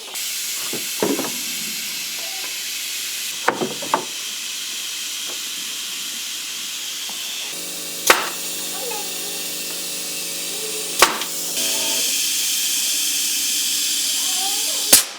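A loud, steady machine hiss that cuts off suddenly near the end, punctuated by sharp snaps: a pneumatic nail gun firing about five times while fastening shelving.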